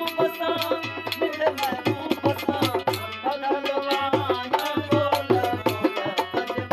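Sindhi Sufi folk song: a man singing over quick, steady percussion strokes and sustained instrumental tones.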